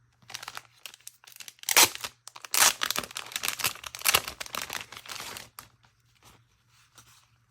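Plastic packaging crinkling and tearing as a small item is unwrapped by hand, in a run of rustling bursts that is loudest about two to three seconds in and then dies down to a few faint crackles.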